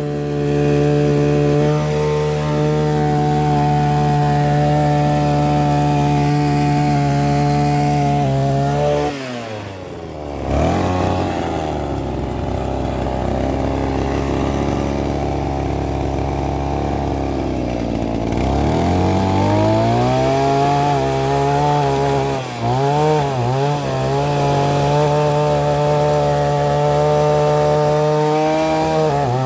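Engine of a gas-powered post-hole auger running at high speed. About nine seconds in its pitch drops sharply and it labours at a low pitch for several seconds as the auger digs in under load, then it climbs back to speed, with another brief dip a few seconds later.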